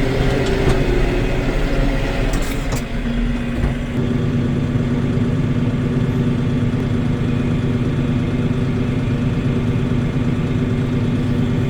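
Tractor engine running steadily; about four seconds in its note drops and settles at a lower, steady pitch.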